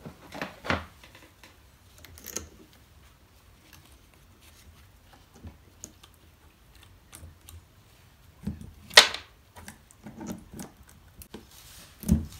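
Scattered clicks, taps and small clanks of chainsaw parts being handled, as during work on the bar, chain and plate. The sharpest knock comes about nine seconds in and another near the end.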